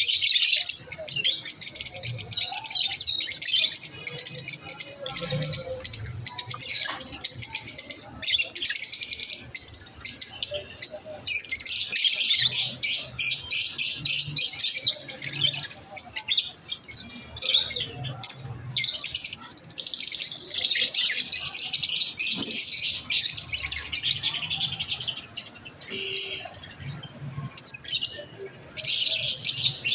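Masked lovebirds chirping in a dense, high-pitched, rapid chatter, with a few short lulls.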